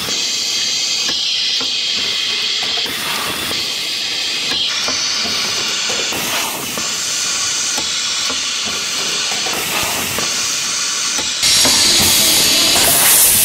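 Rotary pouch-packing machine for kimchi running: a steady high hiss over light, rapid mechanical clicking as its grippers index the pouches round. It gets suddenly louder near the end.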